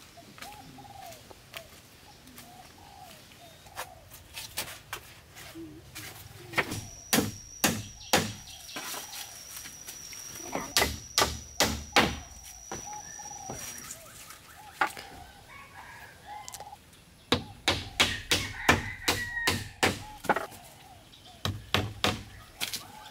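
A tool striking wood in bursts of sharp knocks, about three a second at the busiest, with pauses between the bursts, typical of chopping or hammering timber. Birds call softly in the background.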